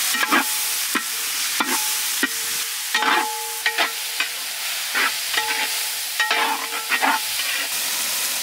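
Long stainless-steel ladle stirring sliced onions frying in oil in a large metal pot, over a steady sizzle. The ladle knocks and scrapes the pot in irregular metallic clanks, about two a second, several of them ringing briefly.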